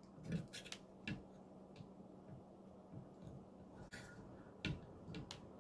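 Faint, scattered clicks and light knocks from handling knife-sharpening gear (Edge Pro sharpener, stones and blade), a few in the first second and a couple more near the end.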